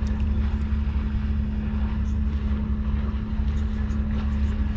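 Boat engine running steadily, a low drone with a steady hum.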